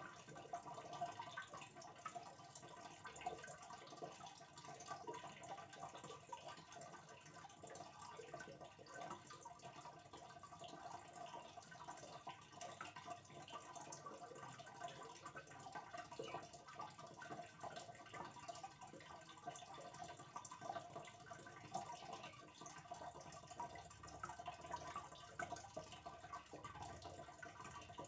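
Faint, steady trickling and bubbling of aquarium water, a continuous patter of small drip-like ticks.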